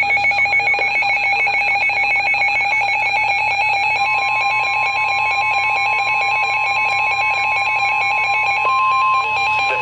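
NOAA Weather Radio Emergency Alert System alert: a harsh, rapidly warbling data screech of the encoded alert header. A steady single-pitch warning alarm tone joins about four seconds in and carries on alone briefly after the screech stops near the end.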